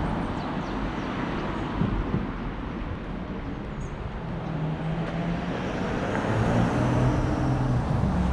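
Outdoor road-traffic noise. A motor vehicle's engine hum grows louder in the second half.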